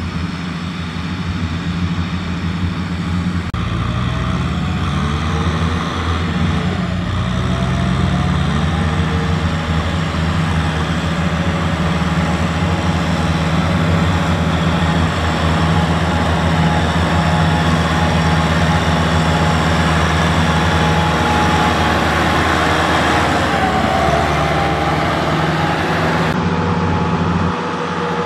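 Kubota M6040SU tractor's diesel engine running under load as it pulls a trailer of rice sacks through mud. Its pitch rises and falls a few seconds in, then it runs steadily, getting a little louder as it comes closer.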